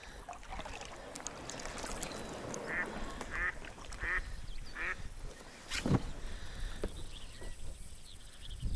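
Live decoy hen mallard quacking, a run of four calls about two-thirds of a second apart, the hen's call that draws drakes in. About six seconds in comes a single sharp knock.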